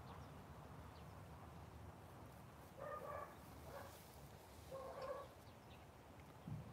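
Two short animal calls, each about half a second long and about two seconds apart, over a faint background.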